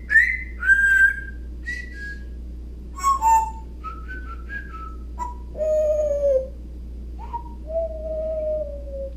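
Pet parrot whistling: short rising and falling notes, a quick run of short chirps, then two long, slowly falling whistles.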